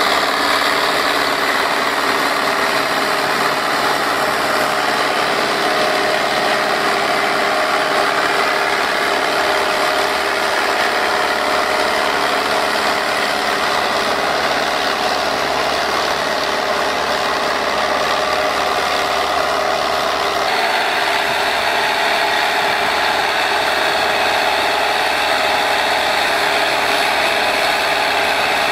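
Deutz-Fahr tractor's diesel engine running steadily under load as it pulls a disc harrow through the soil; the sound shifts abruptly about twenty seconds in.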